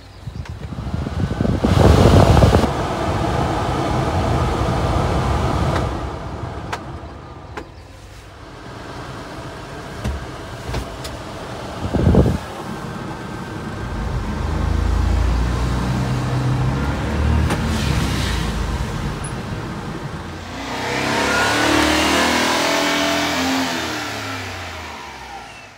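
Cab heater blower of a 1996 Honda Acty truck switched up to a loud rush of air for a few seconds, then a sharp thump. After that the truck's small three-cylinder engine runs and is revved, rising and falling in pitch near the end.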